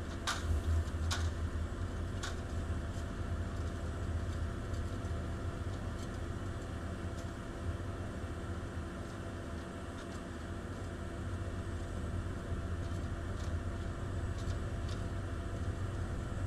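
Large engine idling steadily with a low rumble, with a few sharp clicks in the first couple of seconds.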